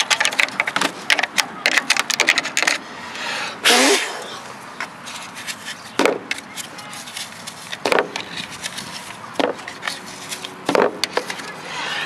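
Dry grass and seed nest material crackling and rustling as it is picked out by hand from around a lawnmower engine's flywheel. Quick clicks come thick in the first few seconds, then a few separate sharp knocks and short rushing bursts.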